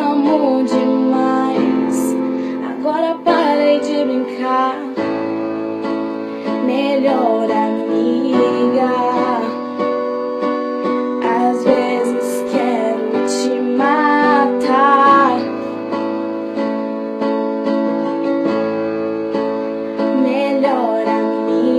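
Song with piano accompaniment and a female voice singing a wavering melody in phrases that come and go, with no clear words.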